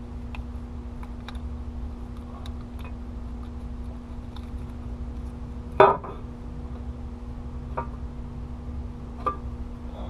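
Light metallic clicks and clinks of hand tools and parts being worked on a diesel engine's valve cover while it is unbolted, with one louder clank about six seconds in and smaller ones later, over a steady low hum.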